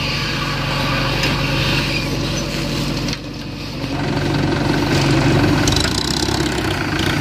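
JCB 3DX backhoe loader's diesel engine running steadily, working its front loader hydraulics, and growing louder about four seconds in as the raised bucket tips a load of soil into a steel tractor trolley.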